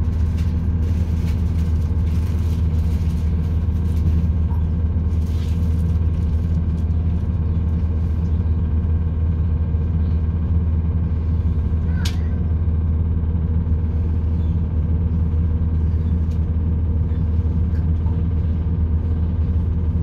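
Inside a British Rail Class 170 Turbostar diesel multiple unit on the move: a steady drone from its underfloor MTU diesel engine, with wheels running on the rails. A brief high squeal about twelve seconds in.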